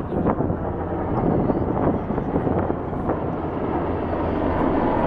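Helicopter running steadily close by, a constant rotor and engine drone with a low hum under it.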